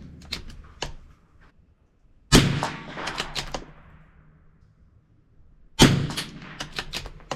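Two shots from a CZ 457 bolt-action rifle, about three and a half seconds apart, each a sharp crack with a short fading tail, with short clicks before and after each shot.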